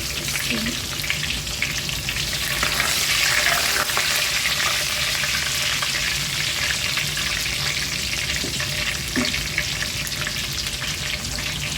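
Onions frying in hot palm oil: a steady sizzle with fine crackling, swelling a little a few seconds in.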